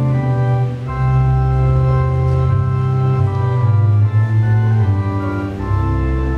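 Organ music: slow held chords changing every second or so over a sustained bass.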